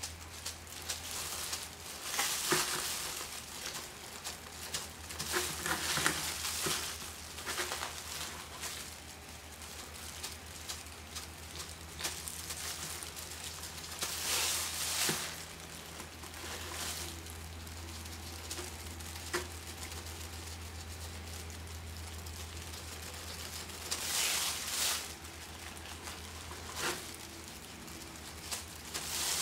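A fingertip in a thin plastic disposable glove rubbing metallic wax paste onto a hard prop piece, the plastic crinkling and rustling in several short bouts, over a steady low hum.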